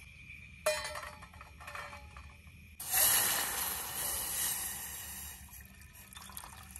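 Metal clicks and clatter as a folding pot gripper is clamped onto a small stainless-steel pot. About three seconds in, water poured from a plastic bottle starts splashing into the empty metal pot, loudest as the pour starts and then easing off.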